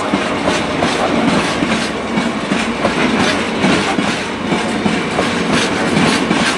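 A freight train of Mendip Rail open box wagons rolling steadily past, with a continuous rumble and repeated clacks as the wagon wheels cross the rail joints.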